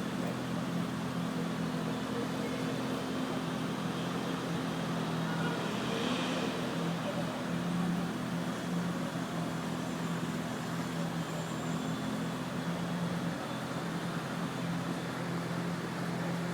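A car engine idling with a steady low hum, not being revved.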